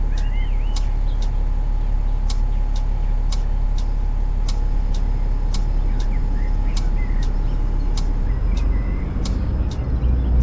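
Inside a moving bus: the engine's low rumble, with short, wavering high squeaks coming every few seconds. This is the weird squeaky noise the rider is recording. A sharp ticking runs alongside, about one and a half ticks a second, and the low engine sound changes near the end.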